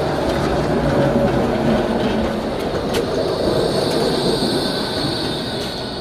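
Nottingham Express Transit tram running close past on street track, with a steady high wheel squeal over the rumble of the wheels and a sharp click about three seconds in. The sound eases off near the end as the tram moves away.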